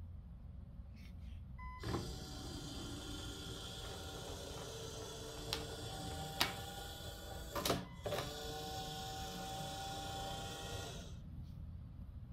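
Automatic chicken coop door's small electric motor running for about nine seconds as it lowers the slatted roller-shutter door to close. A short beep comes as it starts, and a few sharp clicks sound partway through before the motor stops abruptly.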